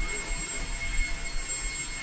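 Beko VRT6221P cordless stick vacuum running with a steady high whine as its floor head is swept back and forth over carpet, with low bumps and rumble from the head moving.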